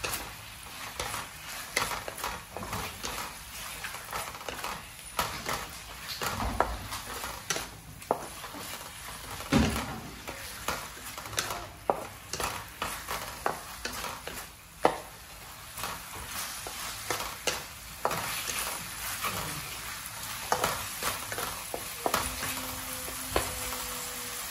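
Mushrooms and meat simmering in sauce in a frying pan: the sauce bubbles and sizzles, with irregular pops and crackles over a steady hiss.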